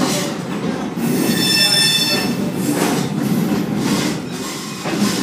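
Railroad cars rolling slowly on jointed track, a steady rumble heard from the caboose, with steel wheels squealing on the rails on a curve for about a second and a half, starting about a second in.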